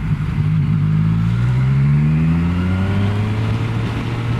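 Yamaha Tracer motorcycle engine accelerating, its pitch rising over about two and a half seconds and then holding steady.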